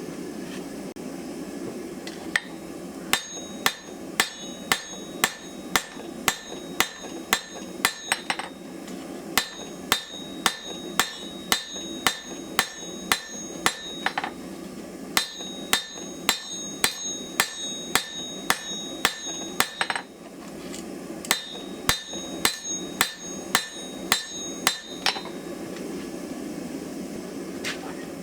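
Blacksmith's hand hammer striking hot steel on an anvil to draw out a knife blade: runs of ringing blows, about two a second, with short pauses between runs. A steady low rush sits underneath.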